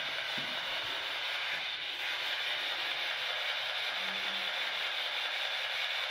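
Steady hiss of room tone, with no distinct sound events.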